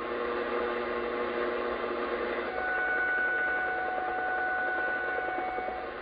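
Shortwave receiver audio from a Yaesu FTdx10 in AM mode, tuned across an unidentified signal near 12.22 MHz that could be a jammer: several steady whistling tones over a hissy, woodpecker-like pulsing background. The set of tones changes pitch about two and a half seconds in as the dial is turned.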